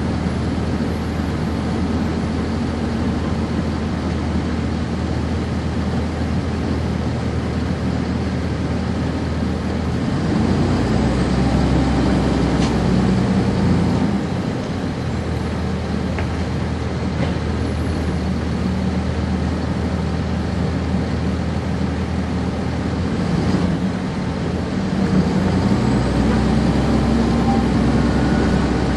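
The Cummins ISC inline-six diesel of a 1999 NovaBus RTS transit bus, heard from on board while the bus is running in service. The engine gets louder about ten seconds in, drops back briefly, and then gets louder again about twenty-five seconds in.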